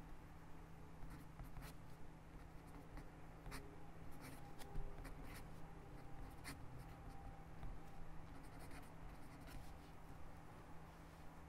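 Fine-tip pen writing cursive on lined notebook paper: quiet scratchy strokes and small ticks as the tip lands and lifts, thinning out near the end as the writing stops. A faint steady low hum lies underneath.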